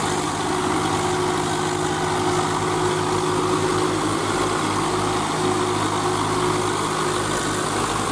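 Tractor diesel engines running steadily under load as the tractors pull through deep mud.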